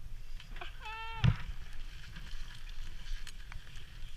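Wind rumbling on the microphone, with one short bleat-like call about a second in that ends in a sharp thump.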